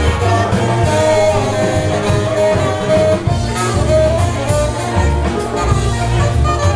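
Live brass band playing a New Orleans Mardi Gras tune, with a woman singing over horns such as trombone and saxophone and a low bass line, and cymbal strokes keeping the beat.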